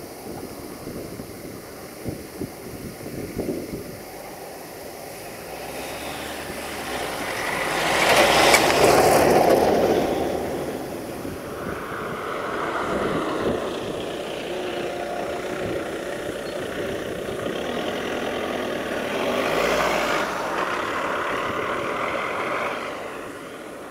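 Diesel engines running outdoors: a tractor working early on, then a diesel locomotive running at a distance. The sound swells loudest about eight to ten seconds in, then settles into a steadier drone.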